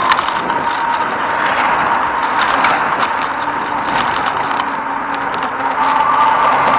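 Riding noise picked up by a bicycle-mounted camera: a steady rush of wind and tyre noise with a thin steady whine underneath, and frequent small clicks and rattles as the bike and mount jolt over the path.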